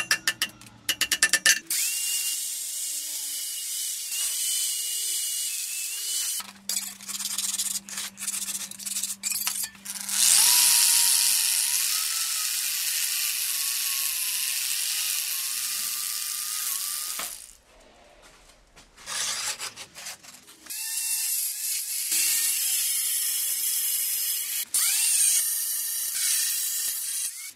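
Metalworking power tools on steel, in several short segments. Bursts of sharp clicking and crackling alternate with long stretches of a hissing tool whine whose pitch wavers as it loads. The loudest, longest whine runs through the middle, and there is a brief near-silent gap after it.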